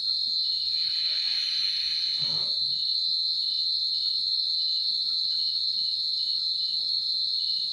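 Giant crickets (jing krong) calling at night: a loud, steady, high-pitched trill, with a second insect chirping about two to three times a second beneath it.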